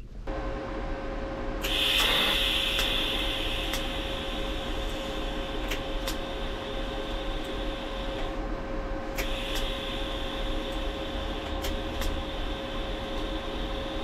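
Welding arc hissing steadily on a La Marzocco GB5 espresso machine boiler, laying build-up reinforcement weld over a hairline crack. The arc starts about two seconds in, breaks off for about a second past the middle, then strikes again. A steady hum runs underneath.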